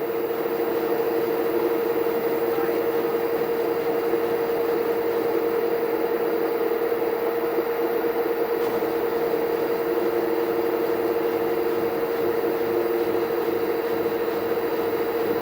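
Washing machine running with a steady motor and drum hum, working quietly with no knocking heard.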